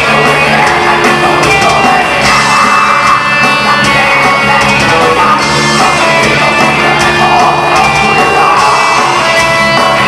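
Metal band playing live: electric guitar, bass guitar and drums at a steady high volume, with a singer's voice over them.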